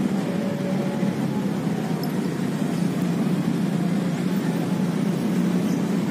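Steady noise of road traffic, an even low hum without breaks.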